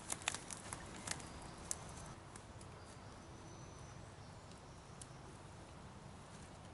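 Faint outdoor woodland ambience with a steady low rumble. A few sharp crackles, like dry leaves or twigs being stepped on or handled, come in the first two seconds.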